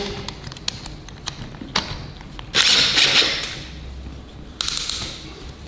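Handling noise of a drill pop riveter attachment being fitted into a cordless drill's chuck: small clicks and a short rustling scrape, then a thud near the end as the drill is set down on the wooden workbench.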